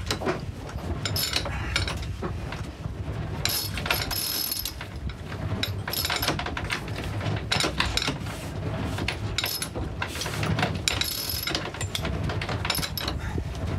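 Sailboat sheet winch ratcheting in irregular runs of clicks as the jib sheet is worked on it, with a steady low rumble underneath.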